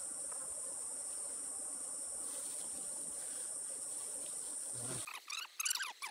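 Steady high-pitched chorus of insects that cuts off abruptly about five seconds in, followed by a few quick chirps falling in pitch.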